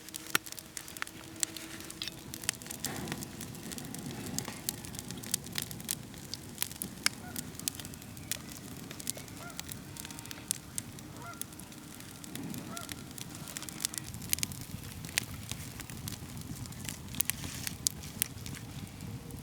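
Campfire crackling with frequent sharp pops, with geese honking a few times in the background.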